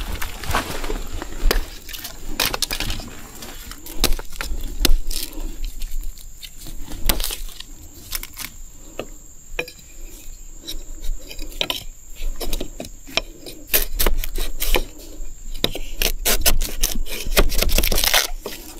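Irregular sharp snaps, cracks and crunches of dry bamboo and leaf litter being handled, coming thick and fast near the end.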